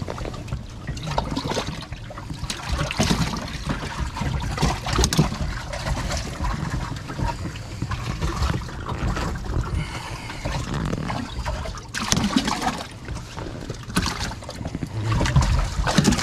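Water trickling and splashing in a bass boat's livewell as a bass moves in it, with louder splashes about twelve seconds in.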